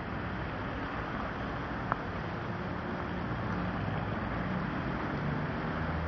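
Steady hiss of road traffic on a wet road, with cars passing close by. A single sharp click about two seconds in.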